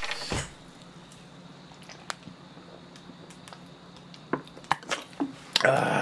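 A few soft gulps while drinking cola from a plastic bottle, then a loud, refreshed 'ahh' exhaled after the drink, starting near the end.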